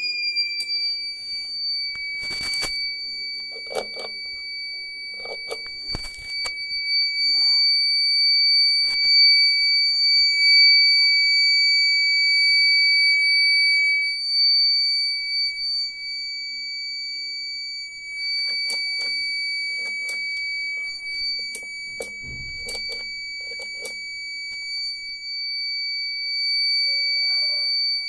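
Luminous Electra 865 home inverter's warning buzzer sounding one continuous high-pitched tone, a fault alarm, with its red fault lights lit. Scattered knocks and rattles come from the unit being handled.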